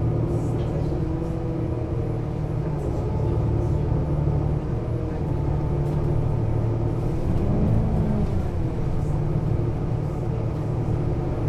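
Solaris Urbino 18 Hybrid articulated bus's hybrid diesel drivetrain running: a steady low engine drone whose pitch briefly rises and falls about eight seconds in.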